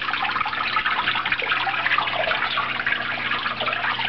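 Small artificial waterfall in a reptile terrarium, water splashing and trickling steadily into its pool, with a faint steady low hum underneath.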